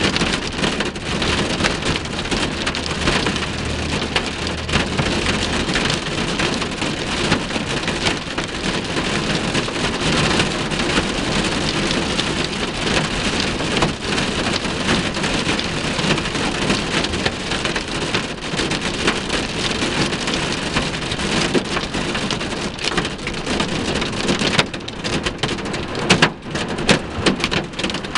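Hail and rain pelting the windshield and body of a vehicle, heard from inside the cab: a dense, continuous patter of countless small impacts, with a few louder, sharper hits near the end.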